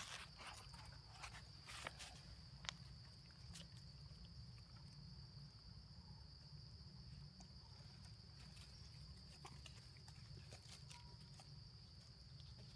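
Near silence, with a faint, steady, high-pitched insect buzz and scattered light clicks and rustles in dry leaves.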